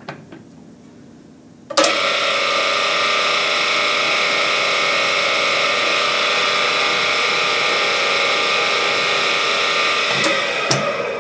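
Electric drill boring into a 454 big-block Chevy crankshaft counterweight, steady from about two seconds in until shortly before the end, with a couple of sharp clicks as it finishes. It is cutting metal out of the counterweight to take off weight and balance the rotating assembly.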